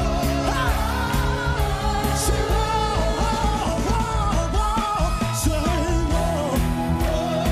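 Live gospel music: singing voices carrying a wavering melody over a full band with bass and percussion.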